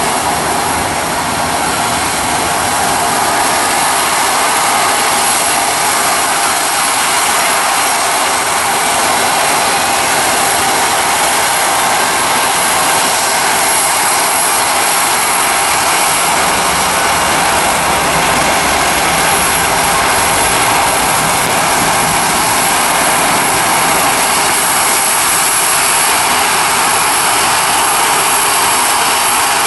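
Jet airliner turbofan engines running: a steady, loud rush with a constant high-pitched whine over it.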